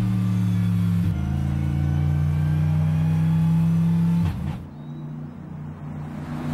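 Mercedes-AMG GT3's 6.3-litre V8 race engine under hard acceleration: a quick gearshift about a second in, then the pitch climbing steadily. About four seconds in the engine note falls away sharply to a fainter, more distant sound, which swells again near the end.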